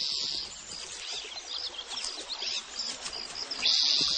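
Outdoor wildlife ambience: small birds chirping in short, repeated high calls, with a brief high buzz at the start and again near the end, like an insect.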